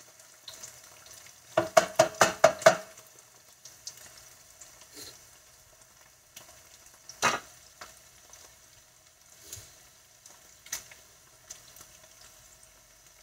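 Slices of Spam frying in oil in a nonstick pan, a steady quiet sizzle. About two seconds in comes a quick run of about six sharp clacks as wooden tongs turn the slices against the pan, and one more clack near the middle.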